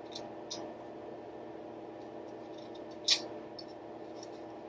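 Scissors snipping small triangles into a strip of construction paper: a few light snips, with a sharper one about three seconds in.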